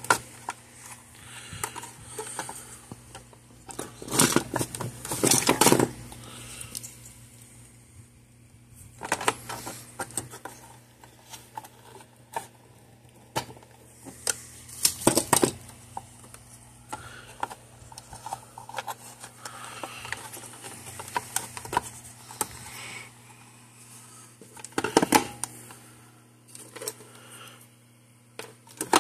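Clicks, rattles and knocks of hands working wires and spade connectors on a circuit board inside an electric fence charger's plastic case, coming in a handful of short clusters over a steady low hum.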